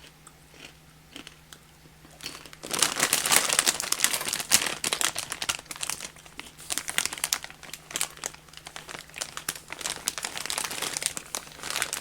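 Popcorn bag crinkling as it is handled: it starts about two and a half seconds in, is loudest for the next couple of seconds, then carries on in shorter rustles.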